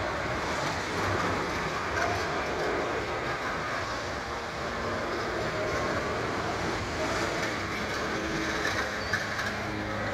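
Funfair ambience: a steady mechanical rumble and din from the rides running, with no single event standing out.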